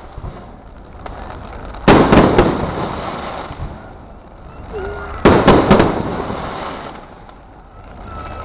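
Aerial fireworks shells bursting: two volleys of sharp bangs about three and a half seconds apart, each a quick cluster of several reports that dies away in an echo.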